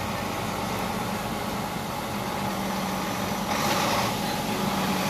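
Iveco Trakker tipper truck's diesel engine running as it approaches at the head of a line of trucks: a steady low engine drone, with a brief rush of noise about three and a half seconds in.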